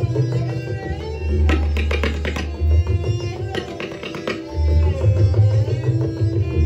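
Two sets of tabla played together in a duet: quick runs of strokes on the right-hand drums ring at set pitches over deep left-hand bass drum strokes that slide up in pitch several times.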